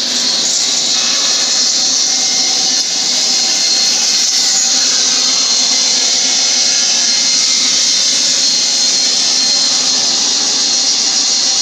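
Table saw running steadily with a high whine as a turned wooden spindle, clamped in a sliding jig, is pushed into the blade for a partial-depth cut.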